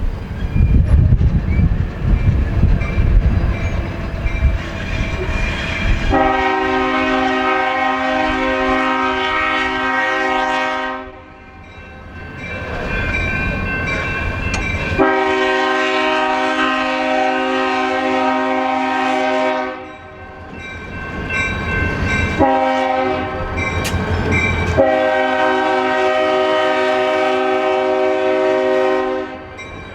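Diesel freight locomotive's multi-chime air horn sounding the grade-crossing signal: two long blasts, a short one and a final long one. Before the first blast there is a low rumble from the train.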